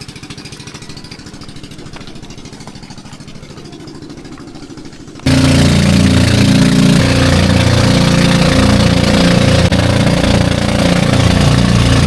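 Motorbike engine running with a steady rapid pulse. About five seconds in, much louder background music cuts in suddenly.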